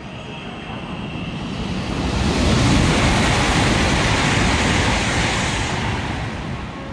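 CR400AF Fuxing high-speed train passing through the station at speed: a rushing roar of air and wheels on rail that swells over about two seconds, holds, then fades near the end.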